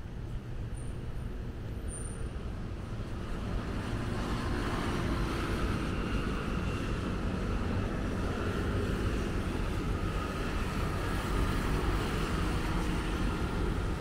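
Road traffic at a city intersection: cars and motor scooters driving past in a steady wash of engine and tyre noise, growing louder about four seconds in.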